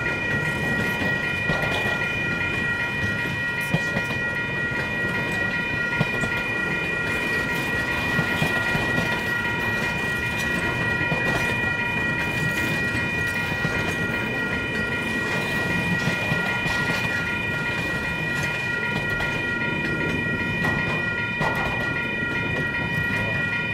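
Freight train cars rolling past at steady speed: a constant rumble of wheels on rail with light clicks of wheels over rail joints, and steady high-pitched ringing tones held throughout.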